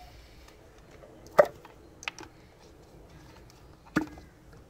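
Spark plug HT lead boots being pulled off the spark plugs of a 2.0 Duratec four-cylinder engine: three short sharp pops, the first the loudest, about a second and a half, two seconds and four seconds in.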